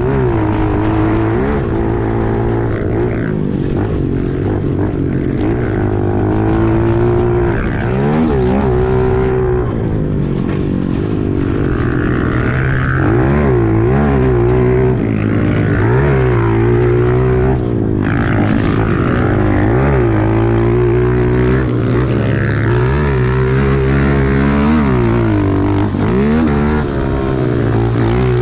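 Pit bike engine revving up and down over and over as it is ridden hard, the pitch rising and falling every second or two through throttle changes and gear shifts.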